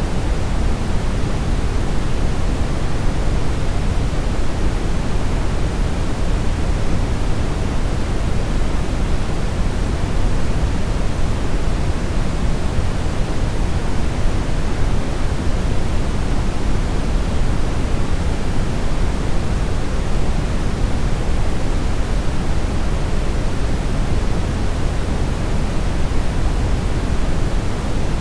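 Steady synthetic brown noise: an even, deep rushing hiss with most of its weight in the low end, unchanging throughout.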